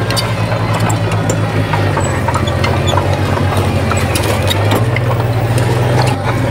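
Diesel engine of heavy earthmoving machinery running steadily, its pitch shifting slightly a couple of times, with scattered metallic clanks and clicks over it.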